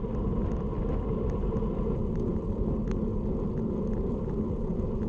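Steady wind buffeting and road rumble on a bike-mounted camera's microphone as a road bike rides along at speed.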